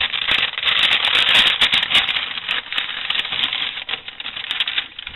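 A plastic shopping bag crinkling and rustling loudly as it is handled and opened, a dense crackle of small clicks that thins out near the end.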